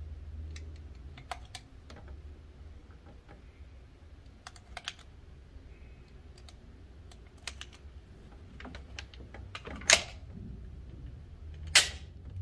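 Cartridges being pressed one at a time into a Taurus G3 pistol magazine, with small metallic clicks spaced a second or more apart. Two louder metal clacks near the end as the pistol is loaded and made ready to fire.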